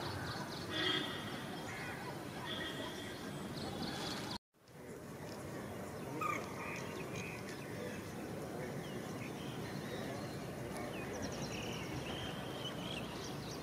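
Pheasant-tailed jacanas calling in short pitched notes, some gliding up or down, over a steady wetland background hiss, with a quick run of repeated calls near the end. The sound cuts out for a moment about four seconds in.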